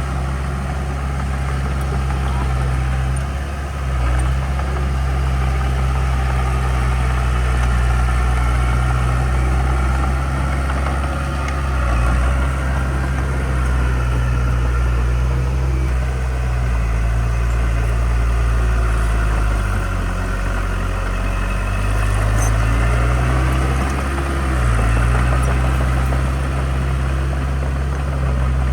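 Heavy diesel construction-machine engine running steadily, its low note dipping and bending briefly a few times as the revs shift.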